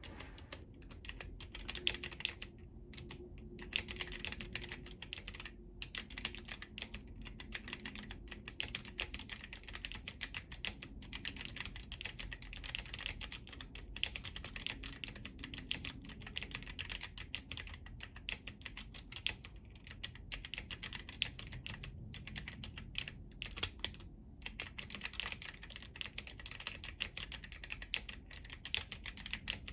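Womier K68 mechanical keyboard with stock Kailh Box White clicky switches and crystal keycaps being typed on continuously: fast, dense clicky keystrokes with a few brief pauses. The keys are struck with long fingernails.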